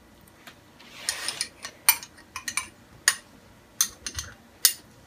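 A spoon clinking and scraping against a glass salsa jar as salsa is spooned onto nachos: a scattered series of sharp clicks, with a short rustling scrape about a second in.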